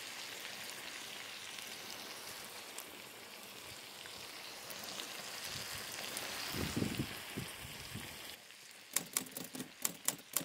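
Wood fire crackling in a portable fire pit: a steady hiss with small crackles, then a run of sharper pops over the last two seconds.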